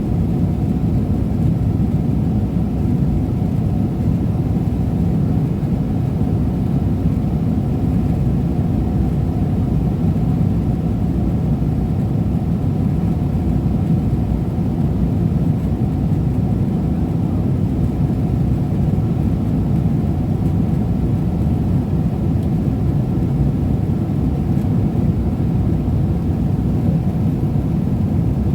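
Steady low rumble inside the cabin of a Boeing 777-300ER airliner in flight: the drone of engine and airflow noise, unchanging throughout.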